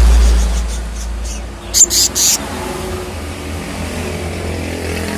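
Three short, sharp, high chirps from a small songbird, a sunbird, about two seconds in. A loud low rumble, like wind on the microphone or a passing vehicle, fades out over the first second and a half, and a faint engine-like hum runs underneath.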